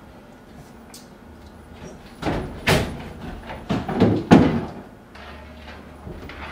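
A cluster of loud thumps and bangs, door-like knocks and slams, over about two seconds in the middle, followed by a faint low hum.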